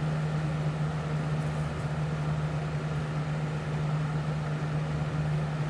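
1998-99 Lasko Model 3733 box fan running on medium speed: a steady low motor hum under an even rush of moving air.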